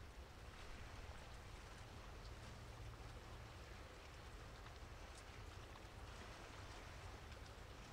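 Faint steady rain with scattered tiny drop ticks, over a low steady rumble.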